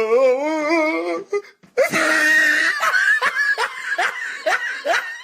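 A meme sound-effect clip of a person laughing. It opens with a wavering held vocal note, then from about two seconds in runs into a string of short, rising laugh bursts.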